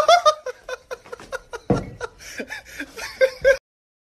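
People laughing in quick, repeated bursts, with a sudden loud noisy burst about halfway through. The sound cuts off abruptly near the end.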